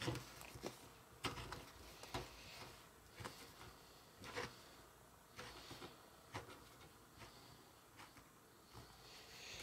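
Faint handling sounds: a blue plastic Play-Doh knife trimming a disc of modelling dough on a table, making soft, scattered clicks and scrapes about a second apart.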